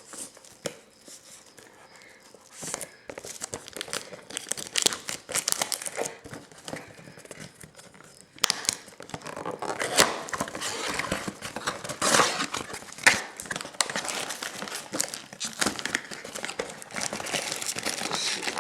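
Plastic shrink-wrap being torn and crinkled off a sealed cardboard box of trading cards. A few light clicks for the first few seconds, then the crinkling starts about three seconds in and grows louder from about halfway.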